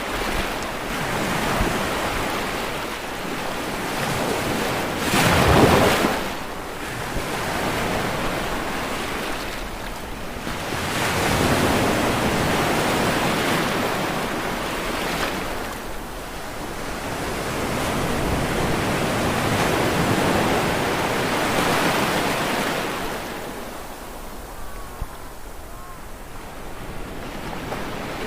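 Sea waves breaking and washing ashore in slow surges every several seconds, the loudest crash coming about five seconds in.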